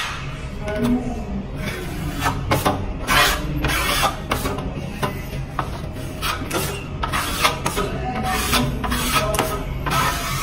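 Steel putty knife and wide taping knife scraping across a wall, spreading and smoothing skim-coat compound over a hairline crack in repeated strokes.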